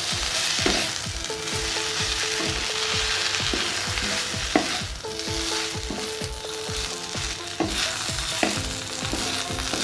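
Chapathi noodle strips sizzling in a hot pan with sauces while being stirred and tossed with a spatula, which knocks and scrapes against the pan a few times a second.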